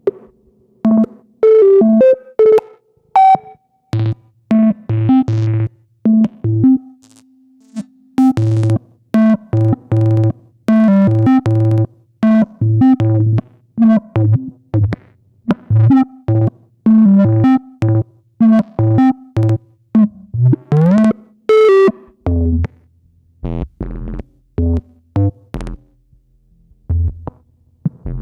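Eurorack synthesizer sequence of short plucked notes over a bass line, played through the Xaoc Devices Zagrzeb stereo four-pole filter. About three quarters of the way through a note glides upward, and the pattern thins to sparser low notes near the end.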